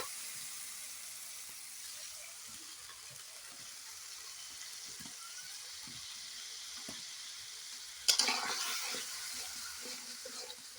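Spiced onion-tomato masala frying in oil in a pan, with a steady sizzle and a few faint clicks. About eight seconds in comes a sudden loud sizzle that dies away over a couple of seconds, as sour curd goes into the hot masala.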